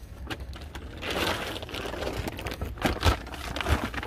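Shopping bags rustling as they are shifted about in a car boot, with a few sharp knocks about three seconds in.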